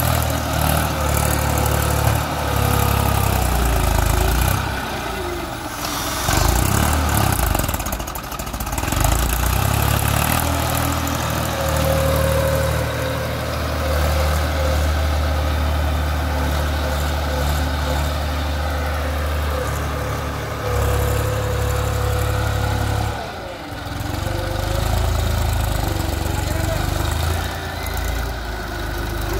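Tractor engine running as it works a front loader, scooping and lifting bucketloads of sand, its note dipping and picking up again several times. A steady high tone runs for several seconds about midway through.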